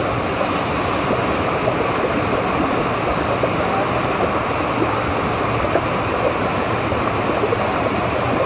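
Water rushing steadily through an enclosed tube water slide, an even, unbroken wash of noise.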